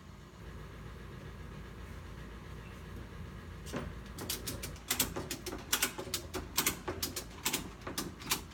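Ratchet strap being cranked tight, its ratchet clicking in quick irregular runs that start about four seconds in.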